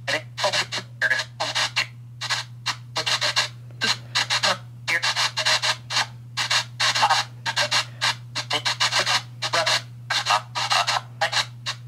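Spirit box app on a phone sweeping through FM radio stations: rapid chopped bursts of static and radio fragments, several a second, over a steady low hum.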